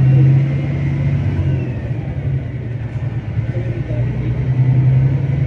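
Steady low engine and road hum of a moving vehicle.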